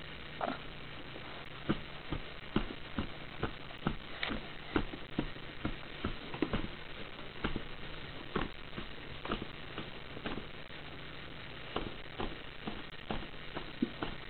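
Light, irregular taps and clicks, about one or two a second, of a baby's hands patting and scraping a plastic high-chair tray while reaching for puff snacks.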